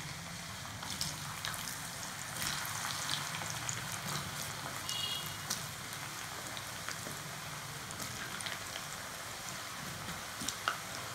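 Par-boiled potato sticks deep-frying in very hot oil in a pan: a steady sizzle with scattered pops and crackles. A few louder pops come near the end as more sticks go into the oil.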